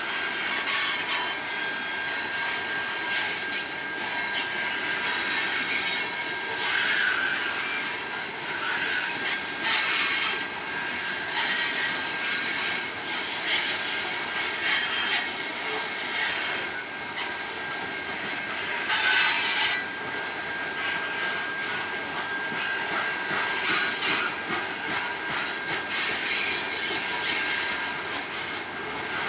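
Freight train cars rolling past on the rails, with a thin steady high wheel squeal and louder surges of screech and rattle every few seconds.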